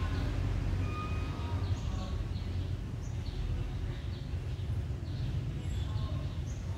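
Steady low background rumble with small birds chirping on and off.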